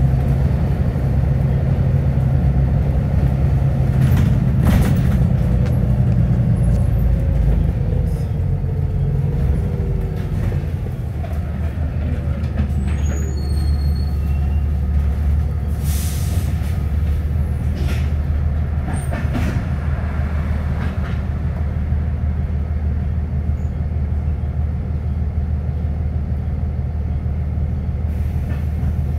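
Double-decker bus engine heard from the upper deck, a steady low hum that drops to a lower, even idle note about ten seconds in as the bus slows, with occasional knocks and rattles from the body and fittings.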